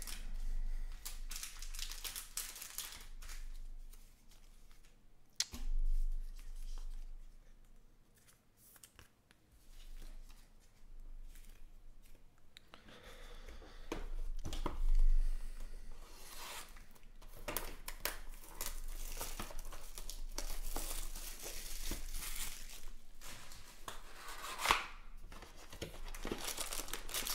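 Packaging of a Panini Prizm football card hobby box being handled and torn open: crinkling, rustling and tearing, with scattered clicks. It is sparse at first and busier through the second half.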